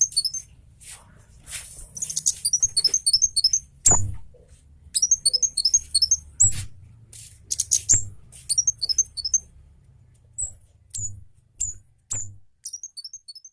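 Scarlet-headed flowerpecker (kemade cabe jawa) calling in agitation: rapid bursts of high, thin twittering chirps about a second long, broken by loud, sharp single 'cit' notes.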